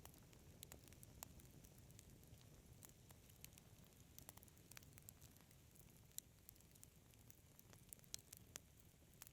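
Wood fire crackling faintly: irregular sharp pops and snaps, several a second, over a soft low rumble.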